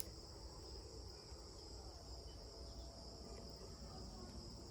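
Faint, steady high-pitched chirring of crickets, an unbroken insect chorus over low background noise.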